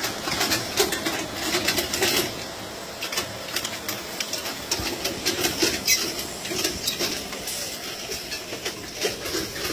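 Radish harvesting and bunching machine running, its bunching and tying units making an irregular, rapid clatter of clicks and knocks.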